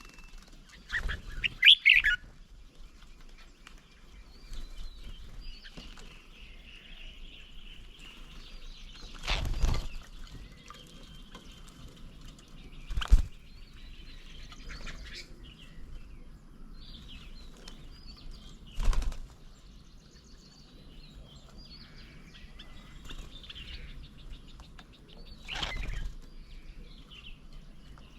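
Birds' wings flapping in short bursts about five times as birds land on and leave a feeding table, with scattered chirps and calls in between.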